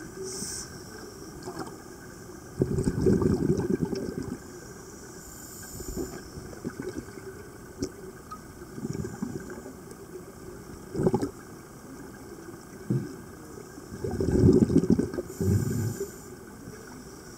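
Scuba diver's exhaled air bubbling out of a Scubapro regulator, heard underwater: gurgling bursts with each breath out, the longest about three seconds in and again about fourteen seconds in, with shorter ones between.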